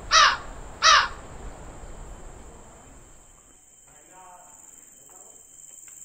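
Two loud, harsh crow caws in quick succession, about 0.7 s apart, of the kind used as a comic awkward-silence sound effect. After them a steady high-pitched drone carries on beneath.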